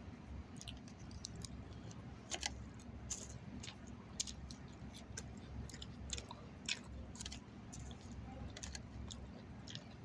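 A person chewing food close to the microphone, with irregular short wet clicks and smacks of the mouth over a low steady hum.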